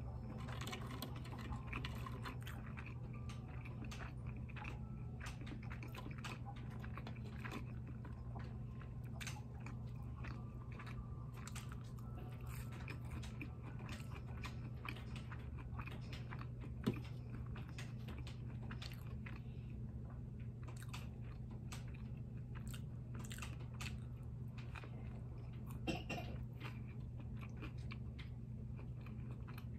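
Close-miked chewing of a mouthful of cheeseburger, with many small crunchy clicks, over a steady low hum. One sharper knock just past halfway.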